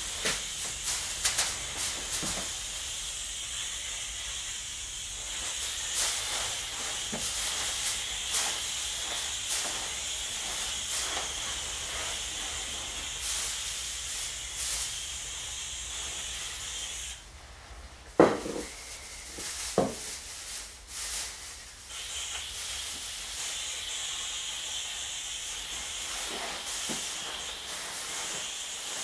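Hand-held pressure sprayer hissing steadily as insecticide is sprayed onto archive shelving against booklice, with scattered clicks. The spray stops for a few seconds about two-thirds through, with two sharp knocks in the gap, then starts again.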